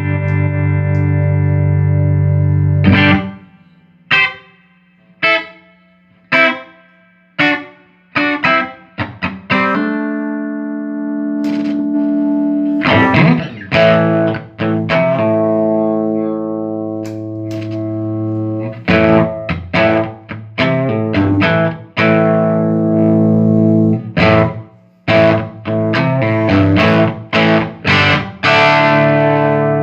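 Electric guitar played through a 1975 Fender Twin Reverb master-volume tube amp, tested after servicing. A held chord rings out, then short chopped chord stabs with silences between them, then ringing chords struck again and again in rhythm.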